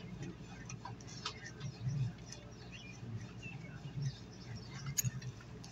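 Small metal clicks and scrapes as the studs of a C-frame exhaust-fan motor are threaded back in by hand, sharpest about a second in and near the end. Birds chirp faintly in the background.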